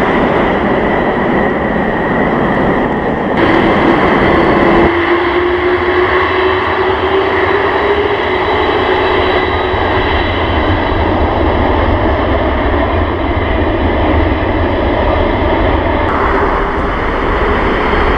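Boeing 747 freighter jet engines running loud and steady, with a whine that rises slightly in pitch over several seconds. The sound changes abruptly about three and a half seconds in, again about five seconds in, and near sixteen seconds.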